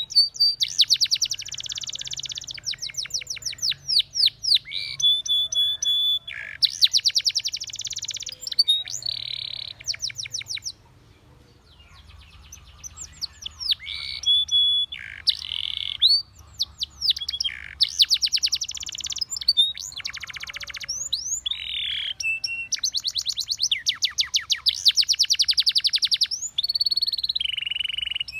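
Spanish Timbrado canary singing: fast rattling trills and rolls alternate with short held whistled notes, with a brief pause near the middle.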